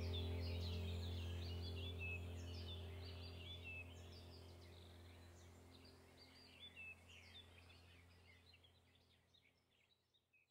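Many small birds chirping and twittering in quick, overlapping calls over a low steady hum. The whole sound fades gradually toward silence.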